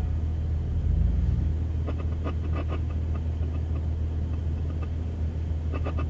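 Off-road truck engine idling steadily with a low hum, swelling slightly about a second in.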